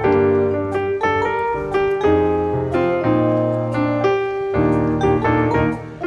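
Background music: struck pitched notes changing at a steady pace over a bass line.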